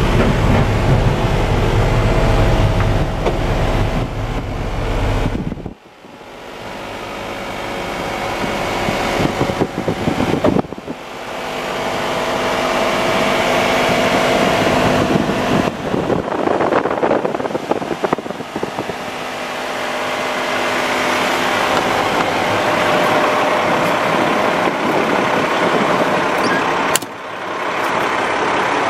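Diesel engine of a 2007 Peterbilt 340 crane truck idling steadily. The sound drops out briefly three times and comes back slightly different each time.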